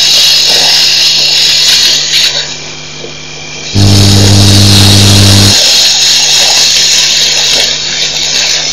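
Water rushing and splashing at a pipe where two elephants are drinking, a steady hiss. Partway through, a loud low hum cuts in abruptly for about two seconds and stops just as suddenly.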